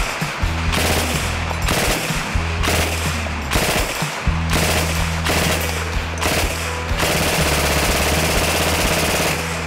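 PPSh-41 submachine gun in 7.62x25mm Tokarev firing full-auto from its drum magazine at a very high rate of fire: a string of short bursts of about a second each, then one longer burst of nearly three seconds near the end.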